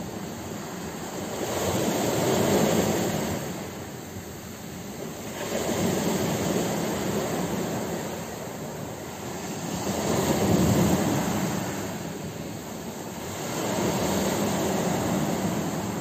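Sea waves washing in on a rocky shore, surging and ebbing in four swells about four seconds apart.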